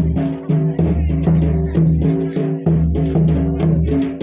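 Loud music with a steady drum beat and a repeating bass line.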